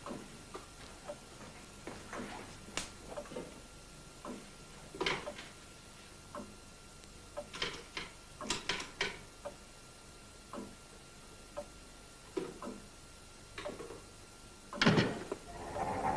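Scattered soft clicks and knocks of a person handling things in a quiet room, a quick cluster about halfway through and a louder knock near the end.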